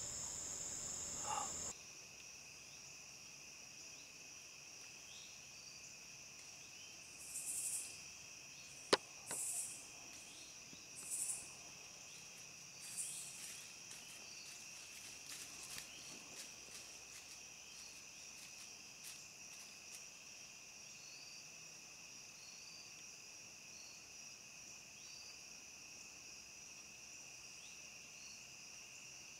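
Steady, high-pitched chorus of insects in the woods. A few brief rustles come between about seven and thirteen seconds in, with one sharp click near nine seconds.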